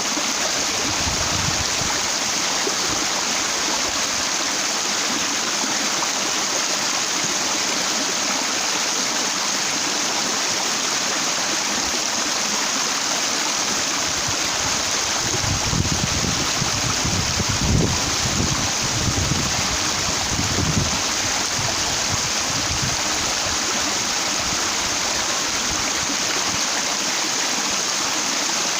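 Stream water rushing over broad flat rocks, a steady even rush. Between about halfway and two-thirds of the way through, a few low rumbles swell under it.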